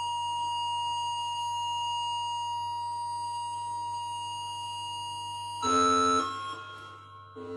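Lunetta modular synthesizer holding one steady high tone with many overtones. About five and a half seconds in it jumps to a louder, lower note for about half a second, and another short note starts near the end, all over a steady low hum.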